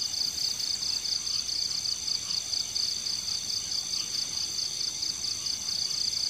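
Crickets chirping steadily in the night, a high, evenly pulsed trill that keeps up without a break, with fainter, higher insect tones running alongside.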